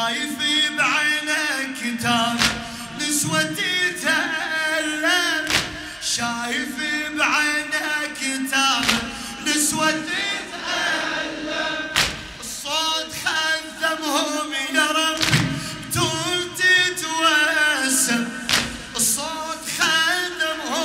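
A male radood chanting a Husseini lament (latmiya) in Arabic, with sharp thumps about once a second from mourners beating their chests.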